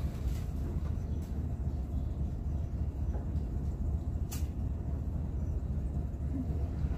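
Steady low drone of a ro-ro ferry's marine diesel engines running during docking manoeuvres, heard from the wheelhouse, with a single sharp click about four seconds in.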